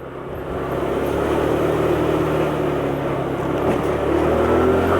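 125cc motor scooter's engine running under throttle while riding, with a rush of wind and road noise; it picks up over the first second and then holds steady, its pitch edging up near the end.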